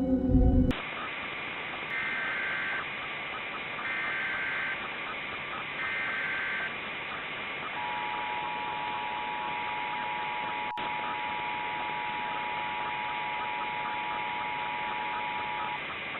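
Ambient music cuts off just after the start, giving way to radio static hiss. Over the static come three short bursts of Emergency Alert System header data tones, each under a second and about two seconds apart. Then the EAS attention signal follows: a steady two-tone alert held for about eight seconds.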